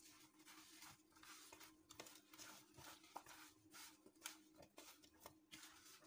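Faint, irregular rustling and scraping of hands tossing cut potato sticks coated in cornflour and spices in a bowl, over a low steady hum.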